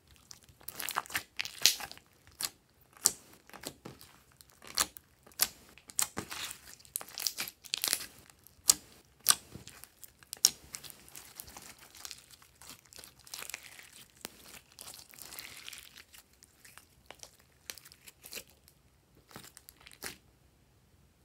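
Hands kneading, folding and stretching a large mass of glossy slime: irregular crackles and pops as it is squeezed and pulled apart.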